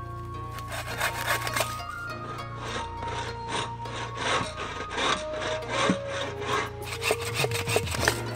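Folding bow saw cutting through a thin wooden branch by hand, in quick, even back-and-forth strokes.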